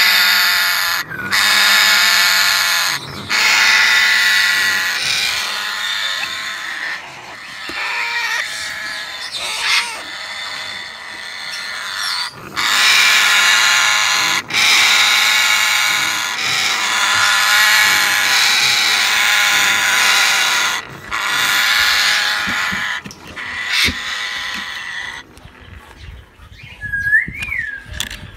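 African grey parrots giving long, harsh growling screeches over and over, each lasting a second or two: the defensive alarm of the parent birds as their chicks are taken. Near the end the screeching stops and a short whistled note is heard.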